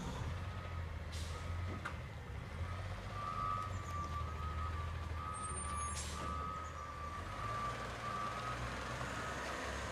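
Backup alarm of a Heil Curotto-Can recycling truck on an Autocar chassis, beeping steadily as the truck reverses at about one and a half beeps a second and stopping near the end, over the low drone of the truck's engine. A short hiss of air about six seconds in.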